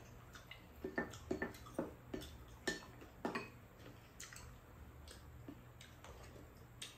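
Close-up eating sounds: slurping, chewing and lip smacks as kimchi stew is eaten, with spoons clicking against bowls, heard as a run of short irregular clicks and smacks, busiest in the first half.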